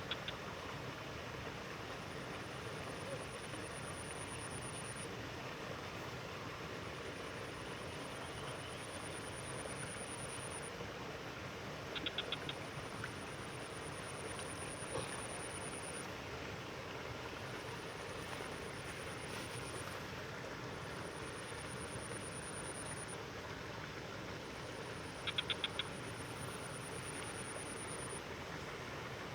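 Outdoor rural ambience: a high-pitched insect trill sounding in stretches of a few seconds with short breaks, over a steady hiss. Twice, about twelve and twenty-five seconds in, comes a short run of four or five quick clicking calls, frog-like.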